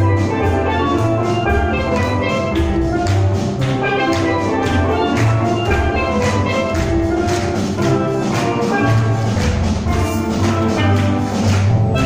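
Steel drum ensemble playing an upbeat tune: many steel pans struck with mallets in quick, rhythmic ringing notes over deep bass notes.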